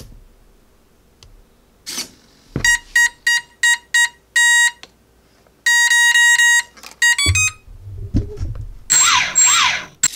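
Electronic beep tones from the RC plane's electronics as they are powered up and set up: a series of short beeps, one longer beep, then a quick rising run of tones. A whirring with sliding pitch follows near the end.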